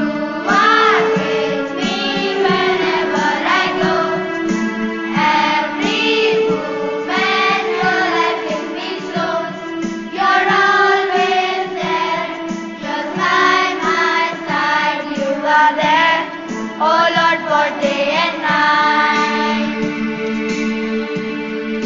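A song: a voice singing a melody with sliding, ornamented notes over steady held keyboard chords.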